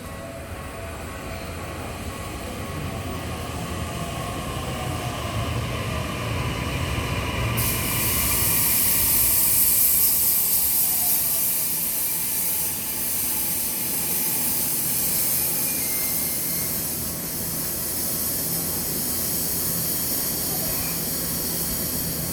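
Tokyu Tamagawa Line electric commuter train running by, growing louder to its loudest about ten seconds in and then holding steady. A loud hiss starts suddenly about seven and a half seconds in and carries on to the end.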